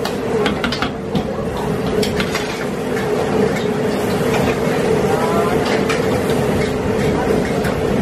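Rice noodles cooking in sauce in a steel wok over a gas burner: a steady rushing noise with a constant hum beneath it. Two or three sharp clinks of the metal spatula against the wok come in the first couple of seconds.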